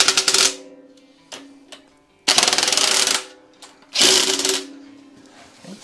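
Cordless impact driver rattling in three short bursts, snugging down the bolts of a cast-iron exhaust manifold on a Ford 302 V8's cylinder head.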